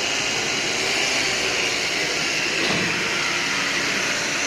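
Rotary hammer drilling into a concrete floor, a loud steady grinding noise without a break, cutting the hole for an anchor bolt.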